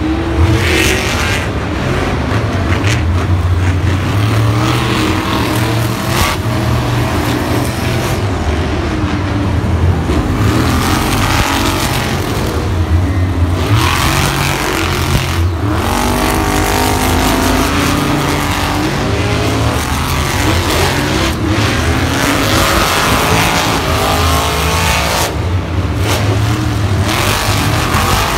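Monster trucks' supercharged V8 engines revving hard in an arena, loud and continuous, the engine pitch rising and falling again and again.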